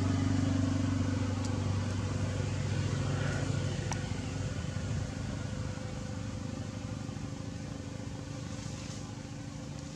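A motor vehicle's engine running as a steady low hum that slowly fades away.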